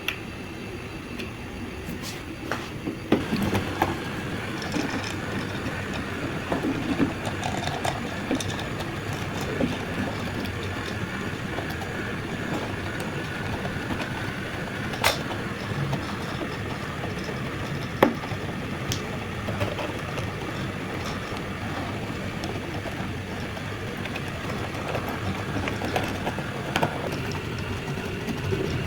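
Small electric motor and gearbox of a motorized diecast model car running with a steady whir, with a few sharp clicks along the way.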